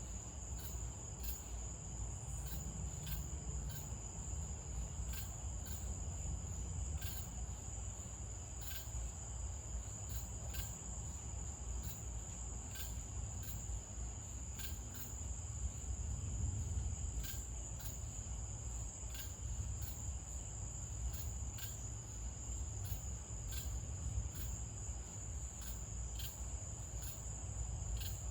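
Night insects: a steady high-pitched cricket trill, with short sharper chirps about once or twice a second, over a low rumble.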